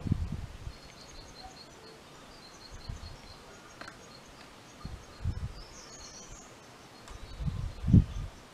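Birds chirping faintly in the background, with a few low muffled bumps on the microphone, the loudest cluster near the end.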